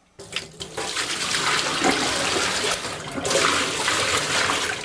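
Water poured from a container splashing steadily into a stainless steel kitchen sink and running into the drain: a test of a drain just cleared with a drain snake.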